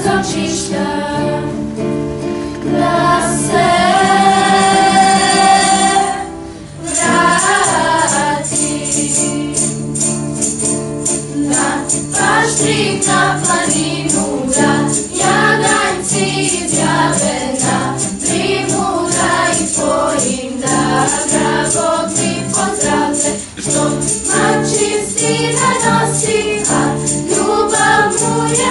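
Girls' choir singing to acoustic guitar accompaniment. About four seconds in the voices hold one long note, then after a brief break the song carries on over steady guitar strumming.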